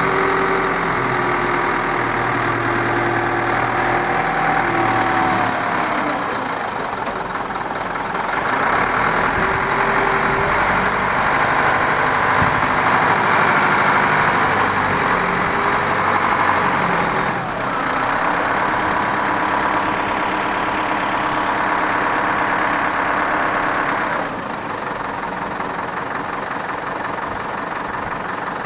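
Caterpillar 950E wheel loader's diesel engine running, its speed rising and falling several times as it works, with a whine that glides up and down in the first few seconds; it settles to a lower, steadier run about three quarters of the way through.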